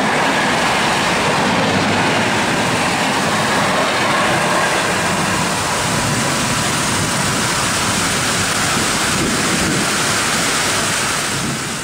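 Rushing noise of an express train's coaches speeding past in a heavy downpour, blending into the steady hiss of the rain as the train recedes.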